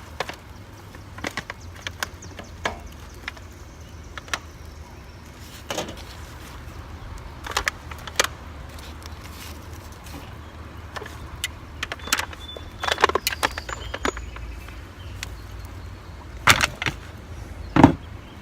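Scattered light clicks and knocks of something being handled, with the two loudest knocks near the end, over a low steady rumble.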